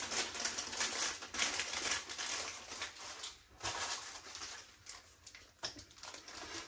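Close-up crunching and chewing of Kurkure corn-and-rice snack pieces: irregular crisp crunches, thinning out in the second half.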